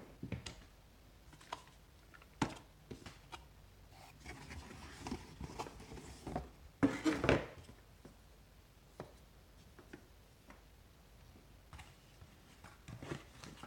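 Cardboard packaging being handled: scattered light knocks and taps, with a stretch of rustling and scraping in the middle, loudest about seven seconds in.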